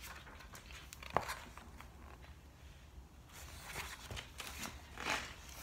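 Pages of a book being flipped and rustled, with a sharp tap about a second in and louder rustles in the second half.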